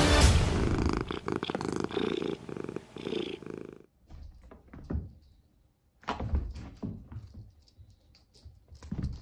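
A cat purring in a run of rapid pulses for about three seconds as music dies away at the start. After a short lull come a few scattered soft thumps and rustles.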